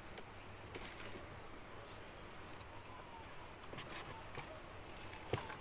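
Light rustling and a few small clicks and snaps as tomato plants are handled while tomatoes are picked, with a faint bird call in the background about three seconds in.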